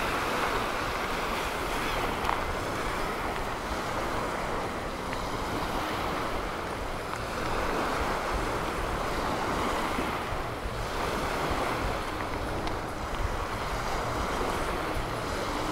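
Surf washing onto a sandy beach, swelling and fading every few seconds, with wind buffeting the microphone.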